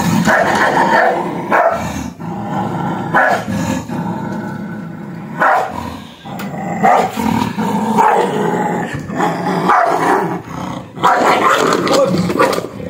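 A dog growling steadily, broken by several short, louder barks.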